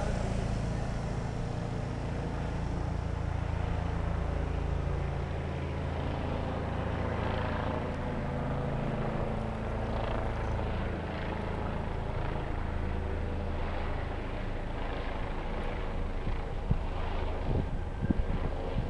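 Police helicopter flying overhead, its rotor and engine making a steady low sound. A few low thumps of wind on the microphone come near the end.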